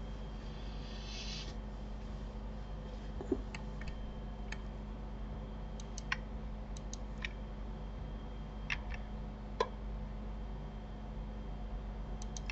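Scattered, irregular clicks of a computer mouse and keyboard over a steady low hum.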